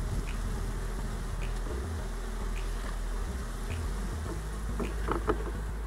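Honey bees buzzing around a hive entrance, with a few light knocks near the end.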